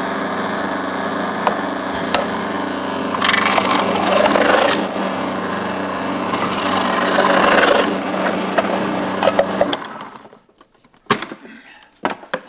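Food processor motor running steadily while red cabbage is pushed down the feed tube onto the shredding disc, with two louder stretches of chopping noise as the pieces are fed through. The motor switches off about ten seconds in, followed by a few sharp plastic clicks.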